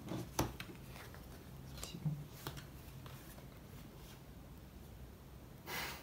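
Playing cards being handled and laid down on a tabletop: a few light taps and clicks in the first three seconds, then a short rustle near the end.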